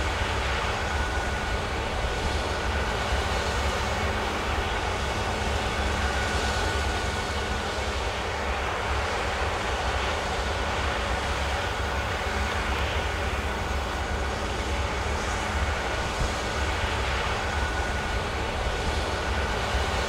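Claas Lexion 8700 combine harvester running steadily at work, threshing rice and unloading grain through its auger. It makes a constant low rumble with a steady high whine over it.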